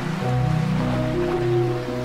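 Background music of slow held chords over a steady sound of ocean waves.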